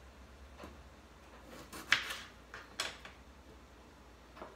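Four separate light knocks and clinks of kitchen items being handled on a counter, the sharpest about two seconds in, with quieter ones before it, just under a second later, and near the end.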